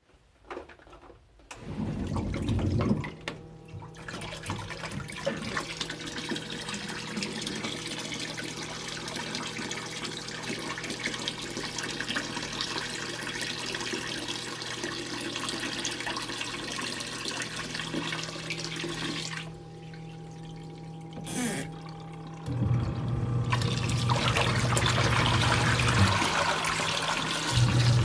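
Washing machine pump running with a steady hum while water rushes and splashes. The rush drops away briefly a little before twenty seconds in, then from about twenty-two seconds a louder, deeper hum takes over.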